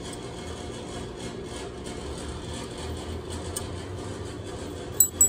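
Steady low hum with two sharp metallic clicks close together near the end, as a valve spring is worked off a cylinder head.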